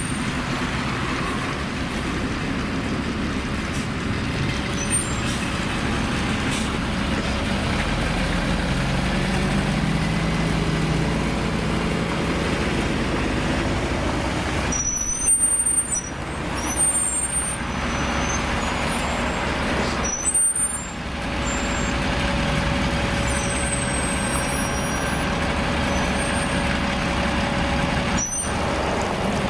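City buses (a LiAZ-5292, a Volgabus-4298 running on LNG and a MAZ-203) running as they creep past one after another in slow traffic, with a few short air-brake hisses in the second half.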